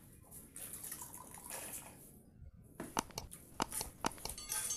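Hands mixing pakhala, watery fermented rice, in steel bowls, making wet splashing and squelching sounds. Several sharp clicks against the steel come about three to four seconds in.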